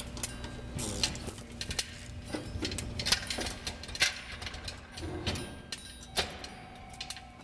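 Workshop sounds of mechanics working on a jet engine: irregular metallic clicks, clinks and knocks of tools and parts being handled, over a faint steady hum.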